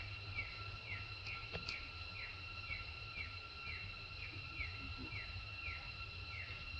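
Outdoor insect chorus: a steady high-pitched buzzing drone, with a short falling chirp repeating about three times a second, over a low background rumble.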